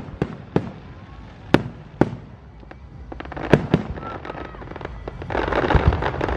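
Aerial firework shells bursting overhead: about six separate sharp bangs over the first four seconds, then a quicker run of small crackling pops with a denser rush of noise near the end.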